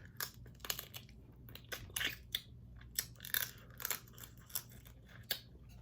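Close-miked eating sounds: a person chewing seafood and working at snow crab legs, a string of irregular crunches, smacks and clicks.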